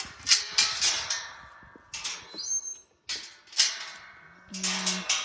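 Footsteps crunching over cold ground, irregular steps about half a second to a second apart, with a brief low steady tone near the end.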